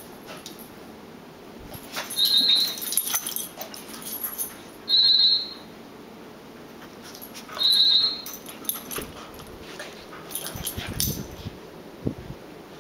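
Two small dogs play-fighting: three short, high, even-pitched squeals, each about half a second, come a few seconds apart, with scuffling between them and low growling near the end.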